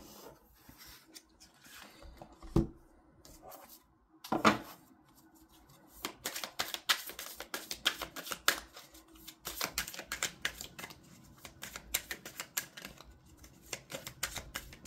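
A deck of tarot cards being shuffled by hand: a couple of separate taps at first, then a quick run of card flicks and clicks from about six seconds in.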